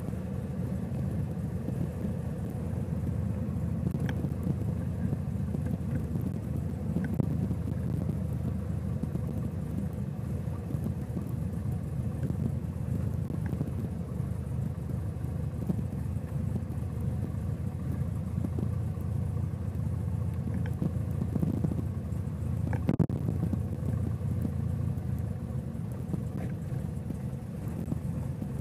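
Kitfox light aircraft's engine and propeller running steadily at low power, a low rumble heard from inside the cockpit. A faint sharp click comes about 23 seconds in.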